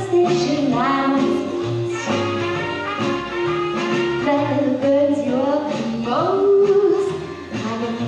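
A woman singing a jazzy song into a microphone, with a band backing her.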